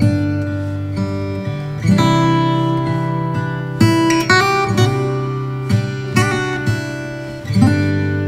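Acoustic guitar music, notes plucked and strummed, played back through a home-built 5-ampere power amplifier and its loudspeaker in a sound test.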